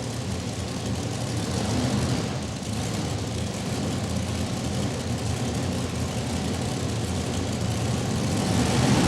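Modified pulling tractor's engine running steadily at low revs as it comes up to the line, getting louder near the end.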